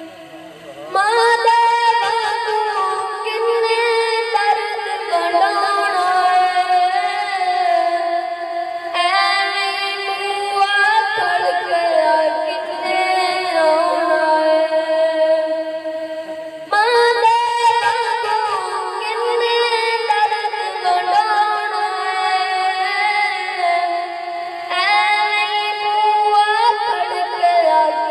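A high solo voice singing verse through a microphone in long melodic phrases of about eight seconds each, with short breaks between them. It is a sanakhan's sung recitation of a poem.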